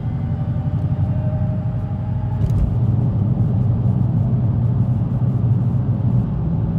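Dodge Hellcat's supercharged V8 and road noise heard from inside the cabin while cruising, a steady low rumble that grows a little stronger about two and a half seconds in.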